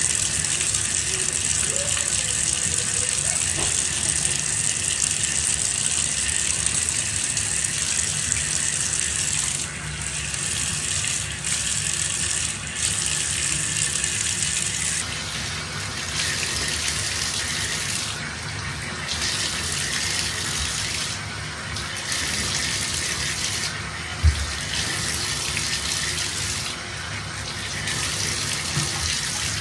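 Water running into a bathtub, a steady rushing hiss that breaks off and comes back again and again from about ten seconds in, with a single thump near the end.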